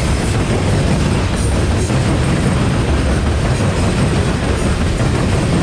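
Loaded coal cars of a CSX freight train rolling past close by: a steady, heavy rumble of steel wheels on the rails, with a few faint clicks.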